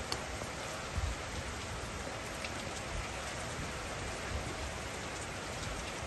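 Steady hiss of even noise, like rain falling on a surface, with scattered faint ticks and a short low thump about a second in.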